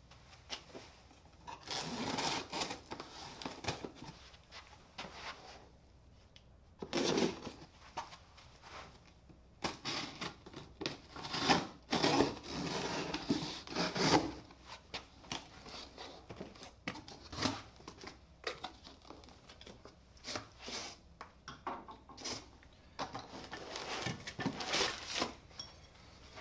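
Packaging being handled and opened: irregular bouts of rustling and scraping, with a few light knocks.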